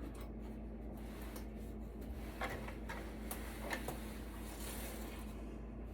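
A few light clicks and taps from hands working on the metal server chassis, over a steady low hum.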